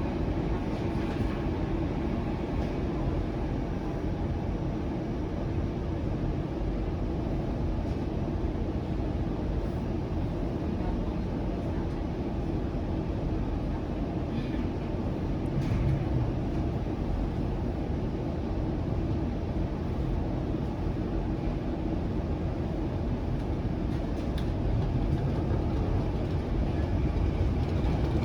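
Bombardier Flexity Outlook streetcar running, heard from inside the car: a steady rumble of wheels on rails with a steady motor hum, growing a little louder near the end.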